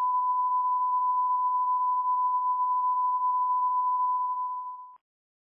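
Line-up test tone of a video's colour-bars leader: a single steady pure tone at 1 kHz that weakens slightly near the end and cuts off about five seconds in.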